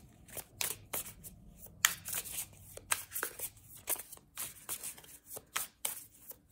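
A deck of tarot cards being shuffled by hand: a run of quick, irregular slaps and taps of card on card, about two or three a second.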